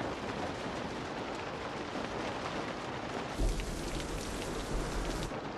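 Heavy rain pouring on a car's roof and windows, heard from inside the car as a steady hiss. About three and a half seconds in, a deep rumble with a sharper hiss over it joins for around two seconds, then stops.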